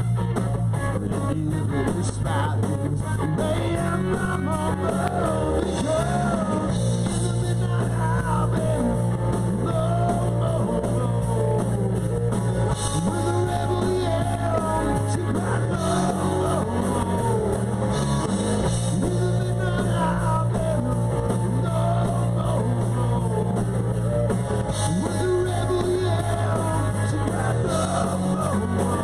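Live rock and roll band playing a song, an electric guitar over a steady bass line.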